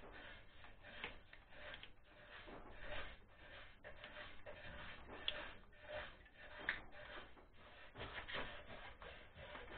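Faint rubbing and scraping from hands working small parts, a plastic canister and a metal plug, with a couple of sharp clicks about five and a half and seven seconds in.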